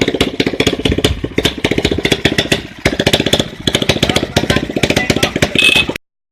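Motorcycle engine running at idle, a quick even beat of exhaust pulses; it stops abruptly near the end.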